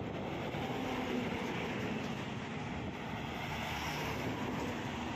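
Diesel engine of a Tata Signa BS6 heavy truck running steadily as the truck drives up and passes close by, a continuous drone with tyre noise.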